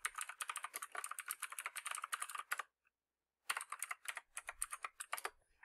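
Typing on a computer keyboard in two quick runs of keystrokes with a short pause between them: an email address and then a password being entered at a login prompt.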